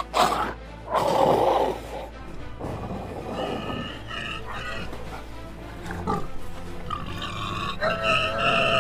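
Loud rough grunts and growls from a wild boar and a tiger fighting, in the first two seconds, over background music. From about three seconds in, music with sustained tones takes over.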